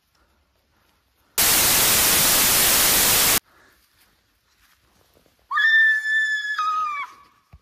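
A loud burst of static hiss for about two seconds, then, after a short pause, a high-pitched shriek held for about a second and a half that drops in pitch in a step and falls away at the end.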